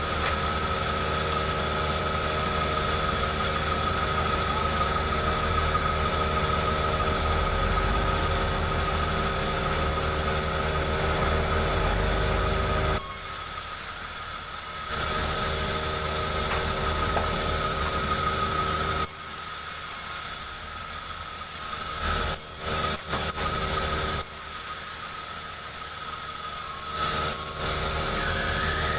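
Two-stroke chainsaw running hard while ripping a log lengthwise. It drops suddenly to a quieter, lower run three times and comes back up each time.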